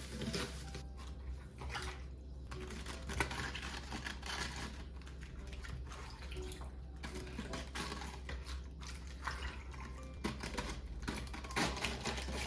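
Water running and splashing in stops and starts, mixed with light clicks and clatter of handling.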